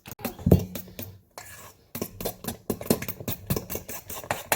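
A fork beating cake batter by hand in a bowl, clicking against the bowl in a quick, fairly even rhythm of about four taps a second.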